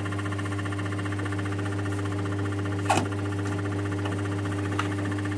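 Capstan lathe's motor and spindle running steadily with a brass bar in the collet: an even mechanical hum with a held tone over it. A sharp metallic clink about halfway through and a lighter tick near the end.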